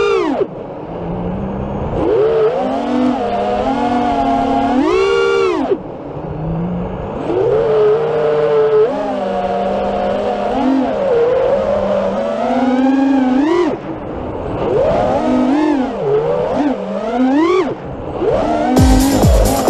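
FPV freestyle quadcopter's brushless motors and propellers whining. The pitch sweeps up sharply and falls back again and again as the throttle is punched and cut through flips and dives. Electronic music comes in near the end.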